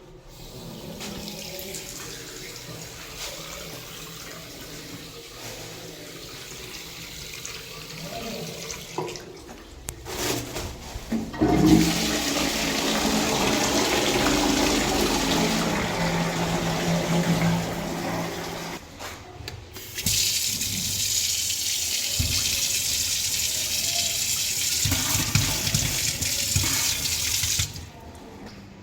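Toilet flushing with rushing water, in three stretches with short breaks; the two later ones, beginning about 12 and 20 seconds in, are the loudest.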